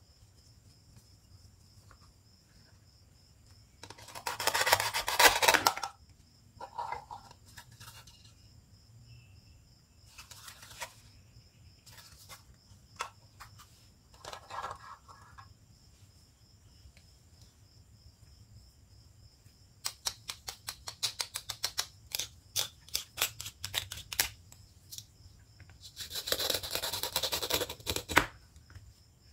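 Velcro (hook-and-loop) strips ripping as velcro toy fruits are pulled and cut apart with a plastic toy knife. There are longer rips about four seconds in and again near the end, shorter ones between, and a quick run of crackles and clicks in the second half.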